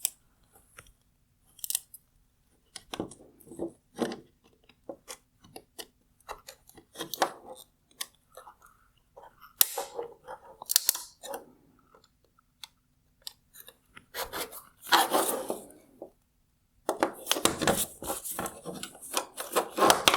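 Plastic parts of a tail light housing clicking, cracking and scraping as the outer trim cover is worked loose from the plastic-welded housing: scattered sharp clicks, with longer stretches of scraping and crackling about three quarters of the way in and near the end.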